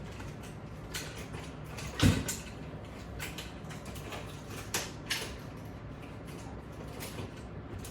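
Exercise equipment being handled: scattered light clicks and creaks, with one louder knock about two seconds in.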